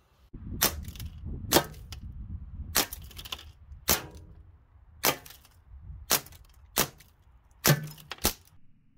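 Umarex Tornado CO2 BB revolver firing nine sharp shots, roughly a second apart, over a low steady rumble.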